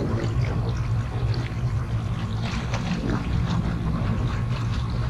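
Electric trolling motor running with a steady low hum, with light water sounds against the boat's hull.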